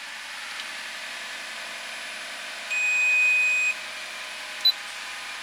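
Steady running hum of a 2013 Honda Civic Hybrid standing with its reinstalled CVT, free of the earlier noise, with a single electronic chime from the car about a second long near the middle and a short blip near the end.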